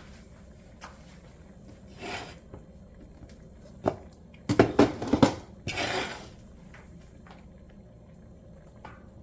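Kitchen utensils clattering against a pot and dishes: a few short scrapes, then a quick run of loud clinks and knocks about halfway through, followed by another brief scrape.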